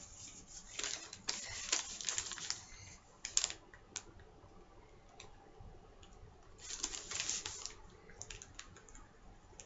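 Typing on a computer keyboard in two short bursts of rapid key clicks, with a few single keystrokes in between.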